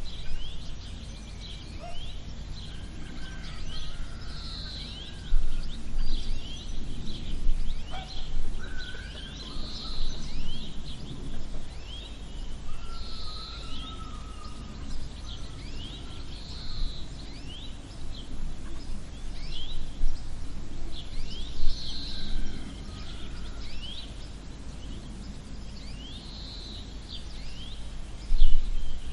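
Rural birdsong ambience: many small birds chirping in short, quick calls throughout, with a louder call repeating every few seconds, over a steady low rumble.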